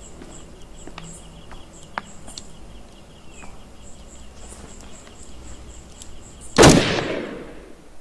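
Crickets chirping steadily in a night ambience from the music video's soundtrack. About six and a half seconds in comes a single loud gunshot, and its echo fades over about a second.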